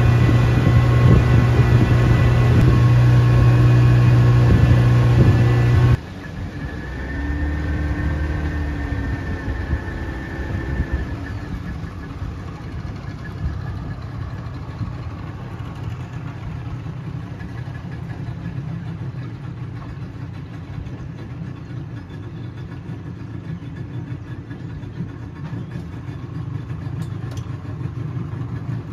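Motorized river canoe's engine running steadily and loudly under way. About six seconds in the sound drops abruptly to a much quieter, low steady running at low throttle, close to idling.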